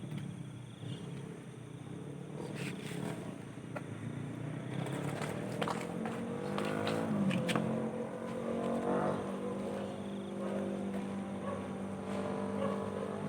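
Distant road traffic: motorcycle and car engines passing, one engine note sliding down in pitch about seven seconds in, then a steady engine hum.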